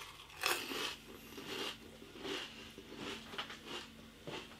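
A person chewing a mouthful of Pringles crisps: irregular soft crunches, roughly two a second.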